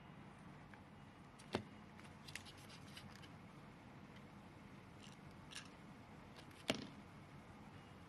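Small plastic parts of a lamp foot switch being handled and fitted together. There are two sharp clicks, about a second and a half in and again near seven seconds, with a few light ticks between them.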